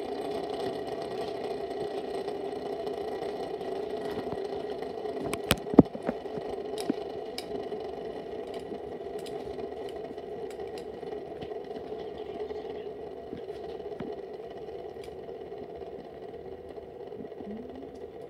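Two fidget spinners spinning flat on a tabletop, set going at the start: a steady whirring hum that slowly fades as they slow down. A few sharp clicks come about five to six seconds in.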